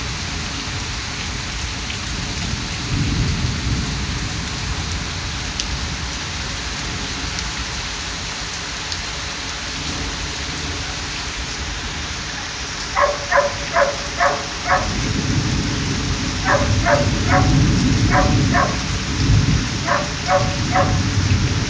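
Steady rain hissing down, with low thunder rumbling a few seconds in and swelling again through the second half. From about two-thirds of the way in, a dog barks in quick runs of several barks each.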